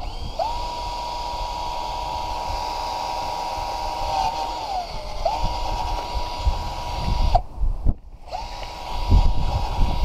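Power drill running in three spells while drilling a hole, a steady high whine. The first spell sags in pitch about four seconds in, then the drill starts again, stops briefly past seven seconds and runs once more a second later.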